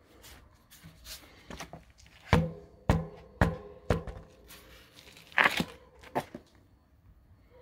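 Sharp knocks and rustles from a bicycle wheel and tyre being handled: four knocks about half a second apart in the middle, then a louder rustling knock and one last knock.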